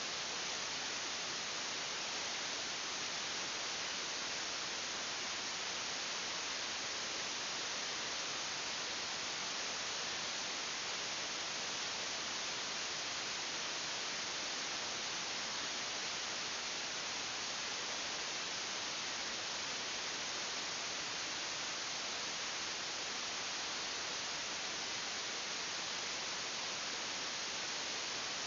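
Steady, even hiss with no change in level throughout, brightest in the upper range.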